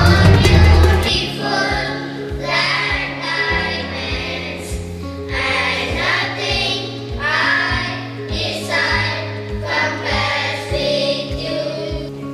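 Music with voices singing over a steady beat and a held bass line, with heavier bass thumps in the first second.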